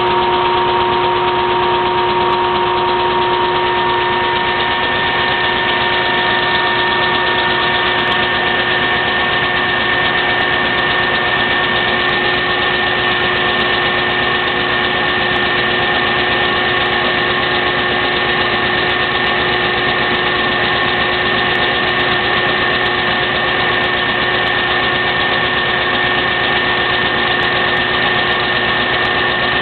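Vacuum cleaner motor running steadily with a constant whine, pulling air out of the two cylinders of a Lego vacuum-powered engine to drive it.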